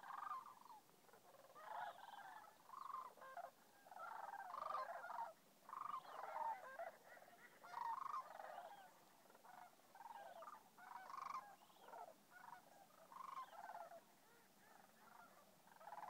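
A large flock of sandhill cranes calling: many rolling, warbling calls overlapping, swelling and fading in waves.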